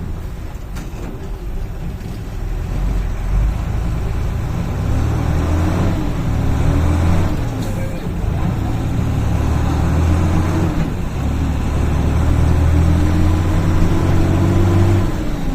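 Mercedes-Benz Eurocar G3 coach's diesel engine pulling under load, its pitch climbing, dropping back twice at gear changes, then climbing again.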